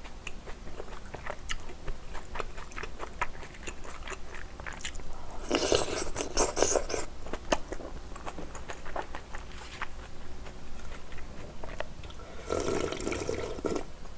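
Close-miked eating of spicy instant ramyeon: chewing with many small mouth clicks, and two loud slurps of broth, one about five and a half seconds in and one near the end as the bowl is raised to drink.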